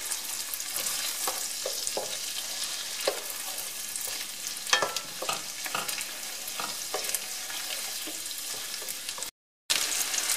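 Chopped onion sizzling in melted butter in a pan, stirred with a wooden spoon that knocks and scrapes against the pan now and then. The sound cuts out for a moment near the end and returns with livelier sizzling.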